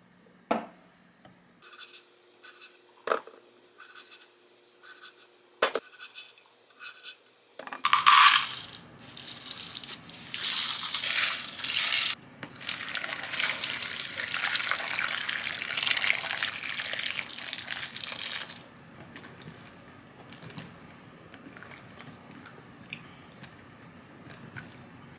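Cucumber chunks set down into a glass mixing bowl, a few light knocks with a faint ring from the glass. Then a loud rush as salt and then water are poured over them, filling the bowl for several seconds. It ends in quieter sloshing as a ladle stirs the cucumbers in the salt water.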